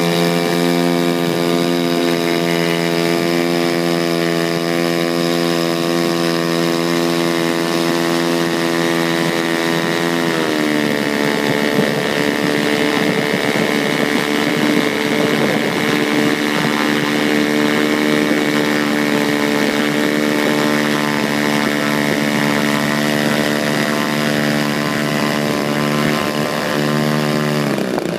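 DLE 55 RA single-cylinder two-stroke gasoline engine on an RC plane, running with its propeller at a steady high speed. Its speed steps down slightly about ten seconds in and drops off near the end.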